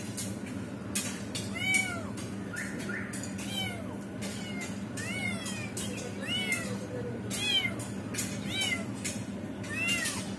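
Trapped kitten mewing over and over in distress: short, high-pitched mews that rise and fall in pitch, about one or two a second.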